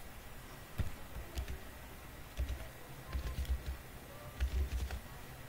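Computer keyboard keys being typed in scattered, irregular clicks as a short word is entered, with a few dull low thumps between them.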